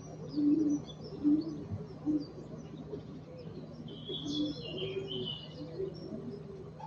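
Racing pigeons cooing: a run of short low coos, the loudest in the first second or so. About four seconds in a small bird gives a brief high twitter, and a steady low hum runs beneath.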